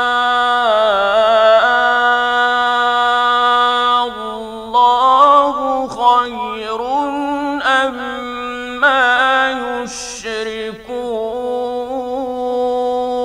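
Male Qur'an reciter chanting in the ornamented mujawwad style, without accompaniment. He holds one long steady note for about four seconds, then moves through melodic turns broken by short pauses, and settles on another long held note near the end.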